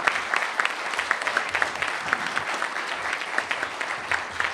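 Audience applauding steadily, a dense run of many hand claps.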